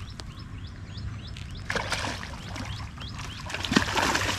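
A small bird calling with short rising chirps, about three a second, against two brief bursts of water splashing and pouring, one about halfway through and one near the end.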